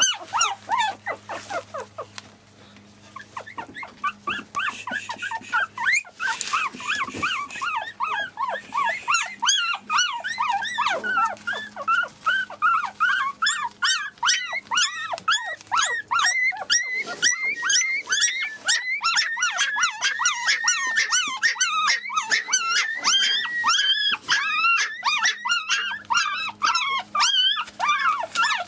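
Month-old Biewer Yorkshire terrier puppies whimpering and squeaking: many short, high cries that rise and fall in pitch, one after another. There is a brief lull about two seconds in, and the cries grow denser from about eight seconds on.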